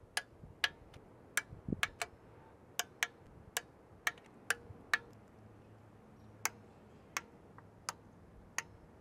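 Ratchet wrench clicking as valve cover bolts are tightened to torque spec: single sharp clicks at an uneven pace, about one or two a second.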